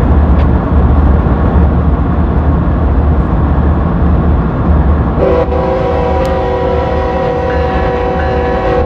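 Diesel locomotive sound: a steady low engine rumble, then about five seconds in the horn blows one long, held blast.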